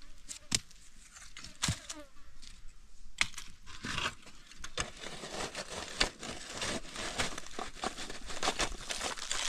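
A spade scraping and scooping up wood ash: a few scattered knocks, then dense scratchy scraping from about four seconds in.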